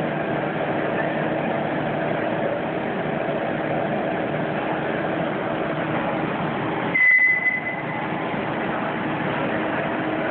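Two-layer blown film extrusion line running: a steady machine drone. About seven seconds in, a brief high tone sounds with a short rise in loudness.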